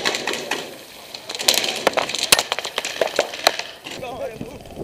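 Airsoft guns firing: irregular sharp cracks and pops, thickest in the middle, with faint distant shouting near the end.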